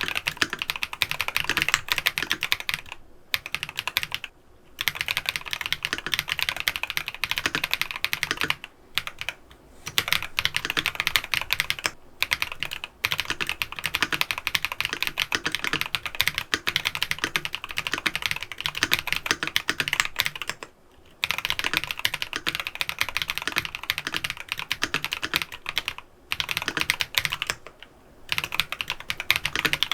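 FL Esports MK750 mechanical keyboard with Geon Black linear switches and Aifei WOB keycaps being typed on continuously: a fast, dense run of keystrokes broken several times by brief pauses.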